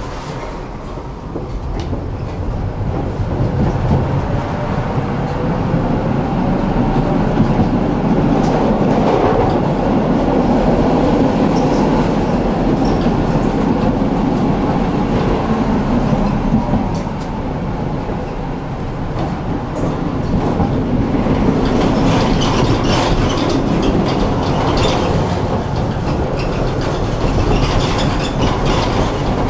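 Tram running on its rails, heard from inside the car: it gets louder over the first few seconds as the tram picks up speed, then runs on steadily with the rumble of wheels on rails. More clicking and knocking from the track comes in the last third.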